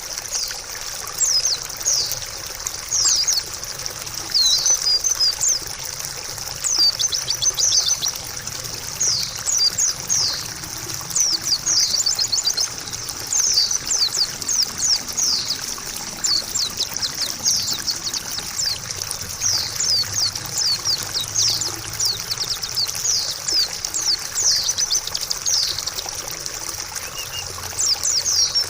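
White-eye (pleci) singing a fast, near-continuous run of high, quick down-slurred chirps over steadily trickling water.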